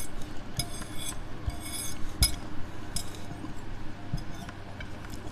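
Metal knife and fork clinking against a ceramic plate while cutting food, a handful of sharp clinks with a brief ringing spread over the first three seconds, then quieter.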